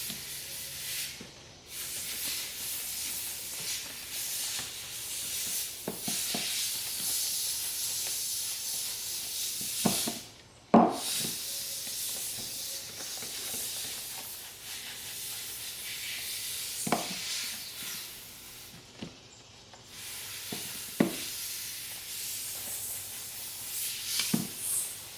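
Leather ball glove being worked by hand: a steady rubbing, hissing friction that stops and starts a few times, with a few short knocks, the loudest about a third of the way in.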